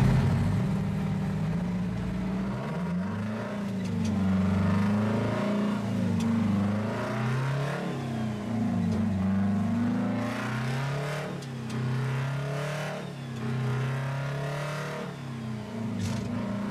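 A diesel engine from a LaFrance fire truck, fitted in a 1977 GMC 7800, heard from inside the cab as it pulls through the gears. The engine note climbs, falls at each gear change, and climbs again several times.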